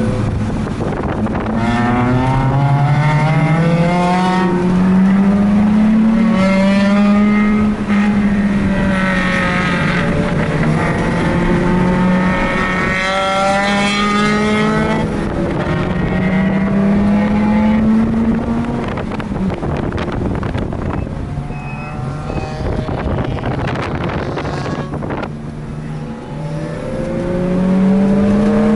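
Mazda RX-8's twin-rotor rotary engine at full throttle on a lapping session, revs climbing and dropping repeatedly through gear changes, quieter off the throttle for a stretch late on, then climbing again near the end. Wind buffets the microphone throughout.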